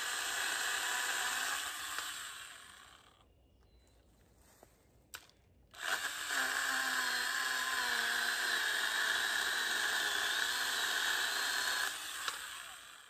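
Stihl battery-powered pole saw's electric chain motor whining as it cuts a branch. It winds down after two or three seconds and is quiet for a few seconds apart from a single click. It then starts again and cuts until near the end, its pitch wavering as the chain bites.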